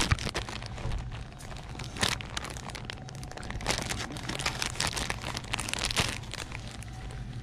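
Plastic packaging crinkling and rustling right against the microphone as it is carried, in irregular bursts that are strongest in the second half, over a low steady hum.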